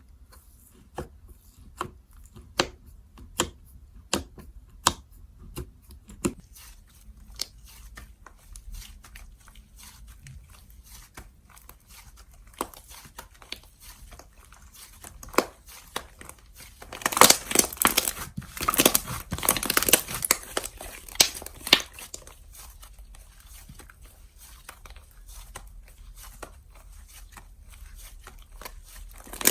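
Slime being played with by hand. At first there are sharp popping clicks a little more than once a second. About two-thirds of the way through comes several seconds of dense, loud crackling and tearing, the loudest part, and softer handling sounds follow.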